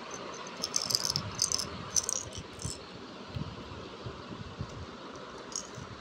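Small hard plastic pieces rattling and clicking in quick clusters over a steady hiss. The rattling is busiest in the first half and comes back briefly near the end.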